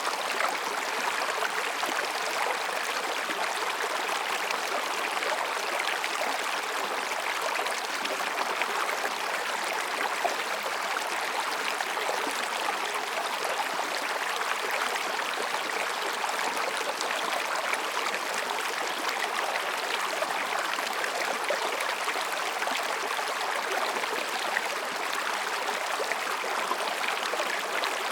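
Mountain stream flowing and babbling over rocks, a steady, even rush of water that does not change.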